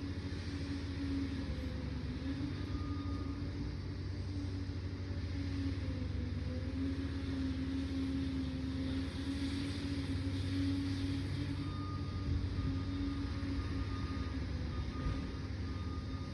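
Liebherr PR 746 crawler dozer's diesel engine running steadily, a constant drone over a low rumble.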